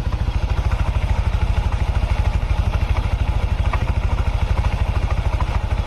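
Yamaha NMAX scooter's single-cylinder engine idling smoothly and steadily, with no cam chain rattle. A new cam chain tensioner has just been fitted, curing the noise.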